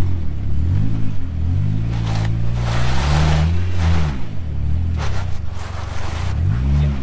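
Jeep Wrangler engine working in low range while rock crawling over a ledge, its revs rising and falling several times as the throttle is fed on and off. A rushing noise swells about three seconds in and again near five seconds.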